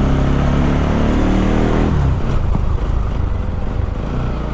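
Bajaj Pulsar NS200's single-cylinder engine through an Akrapovic slip-on exhaust fitted with a dB killer, running under throttle on the move with a light bass note, not loud. The engine note holds steady, then drops off about two seconds in as the throttle eases.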